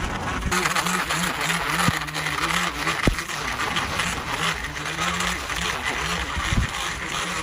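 Power stick edger running, its blade cutting the turf edge along a concrete sidewalk: a steady motor hum under a gritty hiss of thrown dirt and grass, with a couple of sharp ticks.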